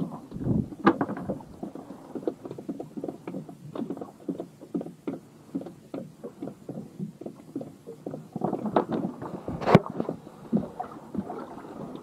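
Small waves slapping against the hull of a wooden fishing boat in quick, irregular slaps, with a sharp knock against the boat about ten seconds in.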